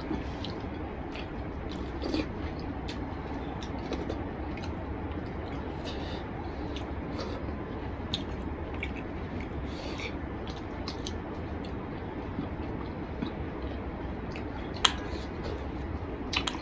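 Eating rice and curry by hand: fingers squishing rice through thin spinach curry gravy on a plate, with chewing and many small wet clicks, over a steady low hum. One sharper click sounds about 15 seconds in.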